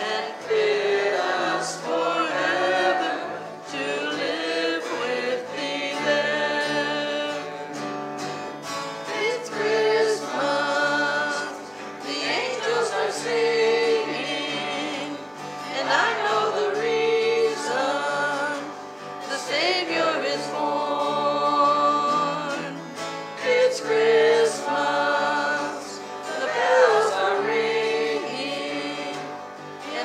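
Small church worship band singing a hymn in several voices, accompanied by acoustic guitar and bass guitar, with a steady stepping bass line under the sung melody.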